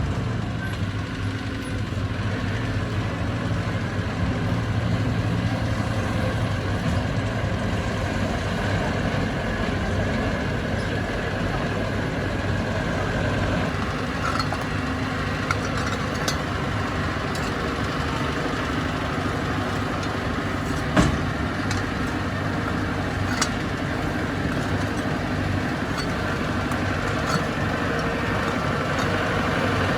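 Heavy diesel engine of an earthmoving machine running steadily, with a few sharp knocks scattered through; the loudest comes about two-thirds of the way in.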